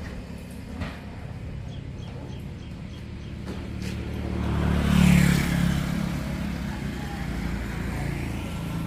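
Road traffic: a steady low engine rumble, with a vehicle passing close and loudest about five seconds in.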